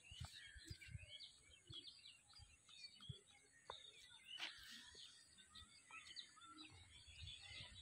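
Faint chorus of small birds chirping, many short quick calls overlapping throughout, with a few soft low thumps.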